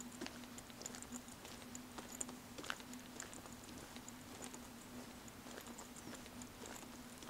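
Footsteps of someone walking on a paved road: light, irregular clicks and taps, over a steady low hum.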